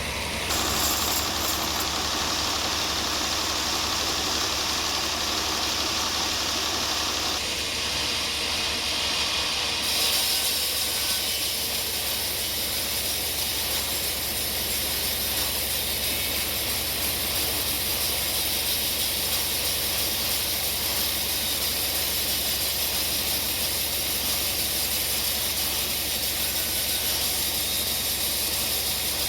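Sawmill machinery running steadily: a low engine drone under a loud hiss from the saw, with the hiss changing about half a second in and again about ten seconds in.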